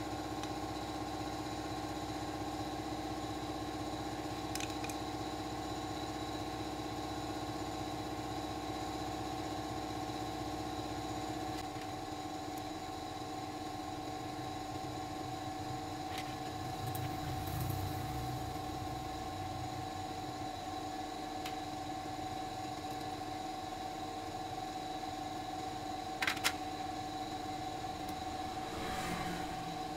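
A steady machine hum with several fixed tones, its deepest part dropping away partway through, with a few sharp light clicks of small metal carburetor parts being handled.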